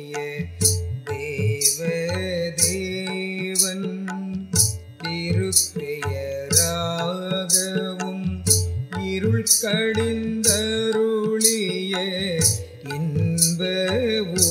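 Instrumental passage of Tamil devotional music: a bending melody over a sustained drone, with deep hand-drum beats and short, bright percussion strokes at a steady pulse.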